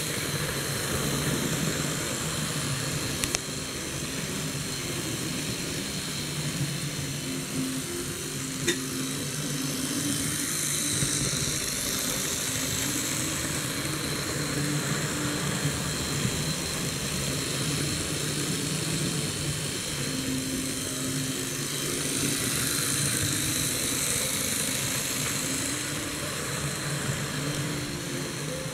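Fleischmann model of the DB class 94 steam tank locomotive running on model railway track with its coaches: a steady whirr of the electric motor and gears with the wheels rolling on the rails, swelling twice, with a couple of sharp clicks. The used locomotive is running smoothly, needing no rework in the owner's view.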